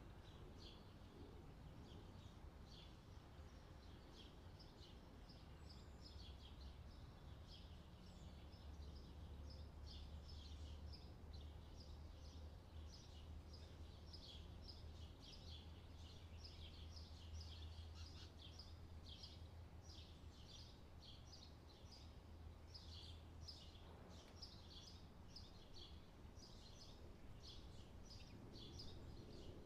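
Near silence: faint room tone with a low hum and many faint, short high chirps throughout.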